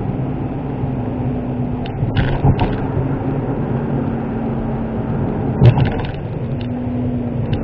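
Inside the cabin of a Suzuki Wagon R (MH23S) kei car driving at road speed: the 660 cc three-cylinder engine and tyre noise with a steady hum. Brief knocks about two and a half and five and a half seconds in, as the tyres run onto and off a short bridge's joints.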